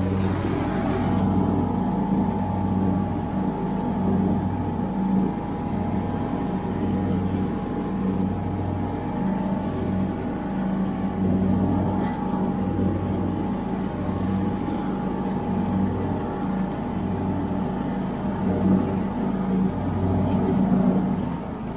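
John Deere LX172 riding lawn tractor's 14 hp single-cylinder engine running steadily under load while mowing, a constant drone with a slow throb about once a second.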